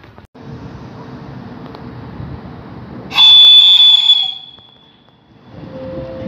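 Locomotive whistle: a sudden, very loud, high-pitched blast about three seconds in, lasting a little over a second and trailing off, from a train approaching the station. A low rumble lies under it before and after.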